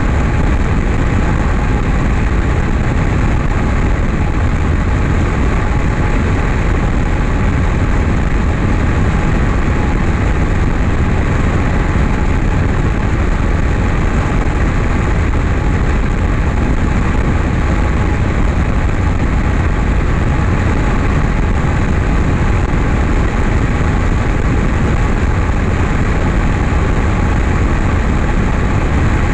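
Steady drone of a single-engine light airplane's piston engine and propeller in level flight, mixed with wind rushing over the outside-mounted microphone; it holds unchanged throughout.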